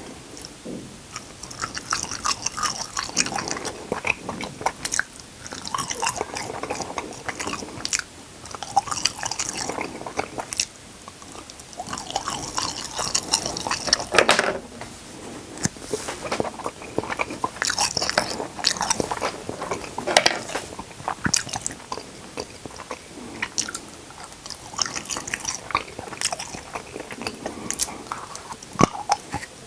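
Close-miked eating: biting and chewing with crisp crunches, coming in bouts of a few seconds separated by quieter pauses.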